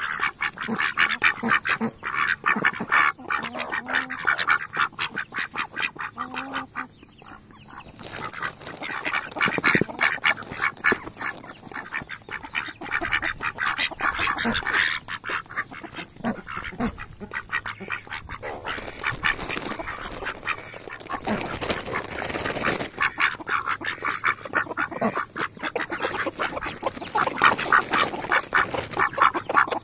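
Several domestic ducks feeding right at the microphone, making fast clicking and chattering sounds with their bills and giving soft quacks as they jostle for peas. There is a short lull about seven seconds in.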